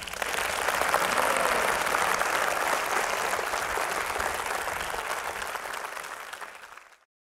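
Audience applauding, a dense steady clatter of many hands clapping, fading away near the end.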